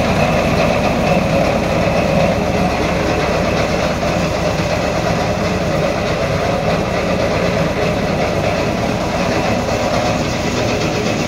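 Sonalika DI-730 II tractor's diesel engine running steadily with a rhythmic mechanical clatter, powering a jute fibre-stripping machine.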